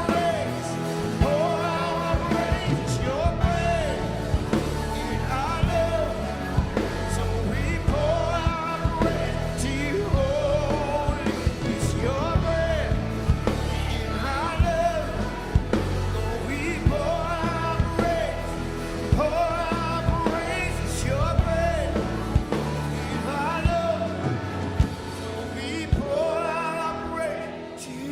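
A worship band playing, with a singing voice over a steady bass and drum beat.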